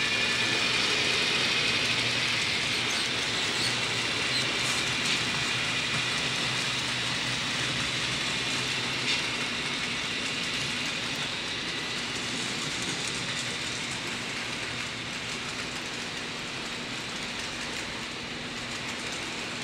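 Model railroad freight train rolling along the track: a steady rattle of many small cars' wheels on the rails, with a faint high whine in the first half, growing gradually quieter.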